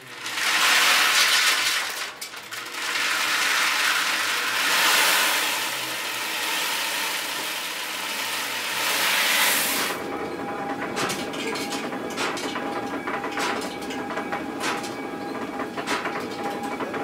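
Grain poured from a plastic bucket into a wooden mill hopper: a loud rushing hiss in two pours, the second lasting about seven seconds. About ten seconds in the pouring stops, and the stone grain mill is left running with a rattling clatter and irregular knocks about once a second from the clapper that shakes grain down to the stones.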